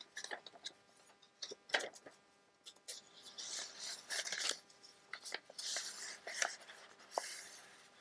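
Old vintage book-page paper being folded and creased by hand: a few light taps and clicks, then repeated rustling and crinkling as the fold is pressed down.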